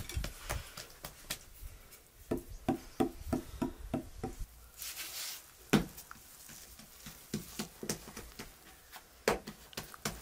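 Hands patting and slapping flatbread dough on a floured wooden table: scattered pats, then a quick run of slaps, about four a second. A short hiss and a sharp knock come about halfway, with another knock near the end.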